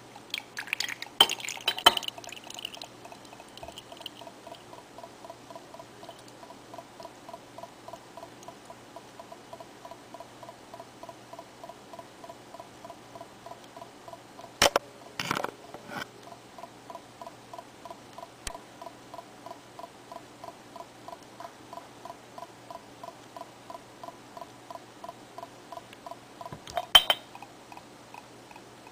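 Glass beer bottle clinking and knocking against the rim of a bowl as beer is poured out, with loud clatters near the start, about halfway and near the end. A steady faint ticking, about twice a second, runs underneath.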